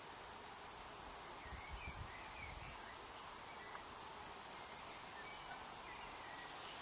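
Faint garden ambience: a steady hiss with scattered small-bird chirps in the distance, and a few low rumbles about one and a half to two and a half seconds in.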